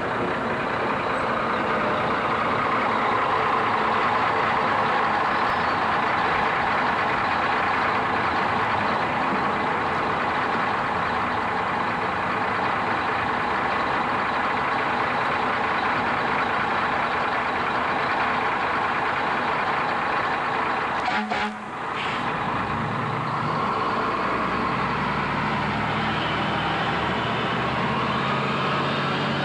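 Mack fire engine running under way, heard from aboard as a steady loud mix of engine and road noise. About 21 seconds in it briefly drops away, then the engine note climbs steadily as it speeds up again.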